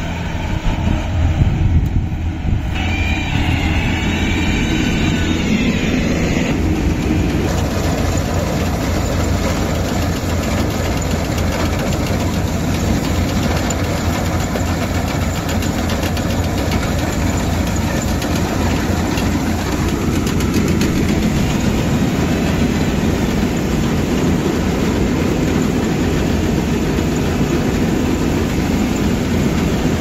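Yanmar tracked rice combine harvester running, its diesel engine a steady low hum under the dense clatter of the working header and threshing machinery. The mechanical noise fills out and grows denser about six seconds in.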